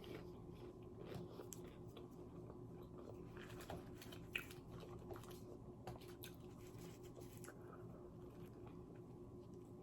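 Faint eating sounds: chewing with scattered soft crunches and mouth clicks, over a low steady hum.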